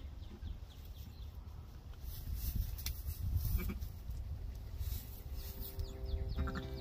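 Babydoll sheep bleating at a newborn lamb in the straw, over a steady low rumble.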